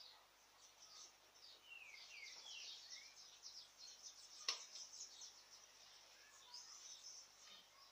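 Faint chirping of birds, many short falling chirps overlapping, with a single sharp click about halfway through.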